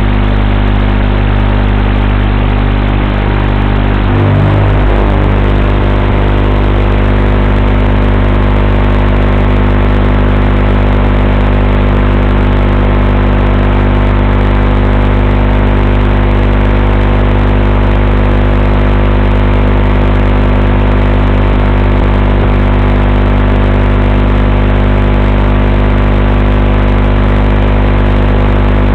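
A steady, many-toned electrical buzz that does not change in pitch or loudness, carried on the audio of an analog FPV video feed while the quadcopter sits still on the ground. There is a brief low bump about four seconds in.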